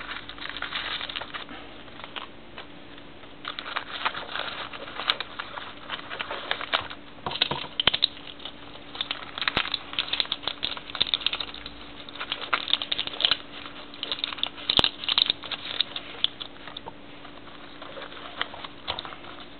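Rustling, crinkling and light clicks of first aid items being handled and packed back into a fabric pouch: plastic-wrapped dressing packets and a small bottle knocking about. The handling comes in irregular bursts over a faint steady hum.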